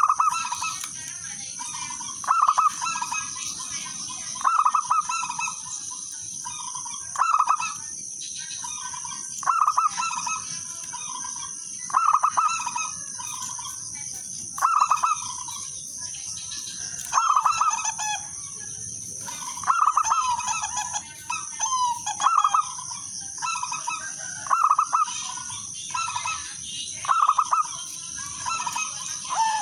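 Zebra dove cooing its song, a short phrase of rapid notes repeated about every two and a half seconds, about a dozen times. A steady high-pitched buzz runs underneath.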